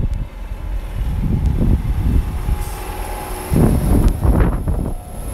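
Electric multiple unit running into the platform past the microphone: a heavy rumble of wheels and bogies, with a thin high-pitched whine coming in a little over halfway through.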